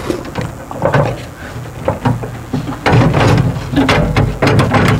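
Metal clicks and knocks as a hitch pin is worked out of the crossover tube of a 5th wheel's manual landing gear. A steady low hum joins about three seconds in.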